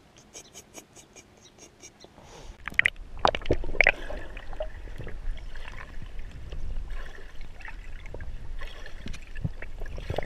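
A few sharp splashes about three seconds in, then water gurgling and sloshing, heard muffled through an action camera held underwater, over a steady low rumble. Before that, for the first two seconds, only faint, quick, evenly spaced ticks.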